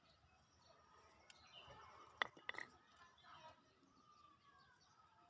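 Faint bird chirps over a quiet outdoor background, with a couple of soft clicks about two seconds in.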